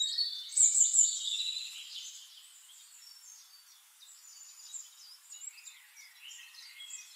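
Birds chirping: a cluster of high calls loudest in the first second or so, then softer scattered chirps.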